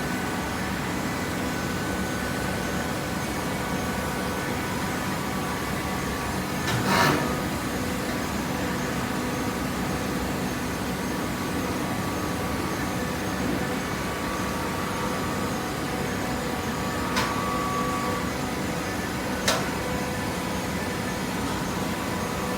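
A baling machine running with a steady mechanical hum made up of several steady tones. There is one loud clunk about seven seconds in and two sharp clicks later on.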